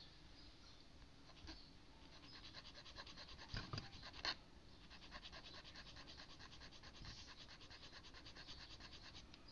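Small hand file rubbing back and forth on the edge of a plastic model-kit part, sanding it down: a faint, quick, even rasping, with two sharper clicks about midway.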